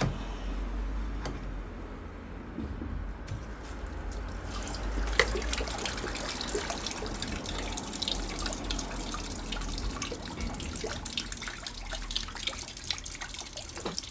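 Residual water trickling and dripping out of a drained-down Ferroli combi boiler while its diverter valve is opened up, growing stronger about five seconds in, with many small drips.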